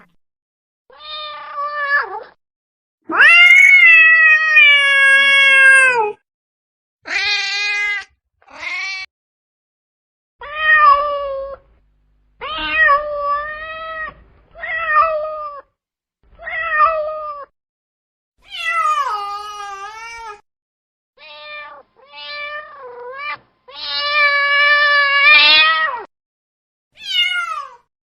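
Domestic cats meowing: a string of about a dozen separate meows of varied length and pitch, most about a second long and two drawn out for two to three seconds, each cut off cleanly with dead silence between.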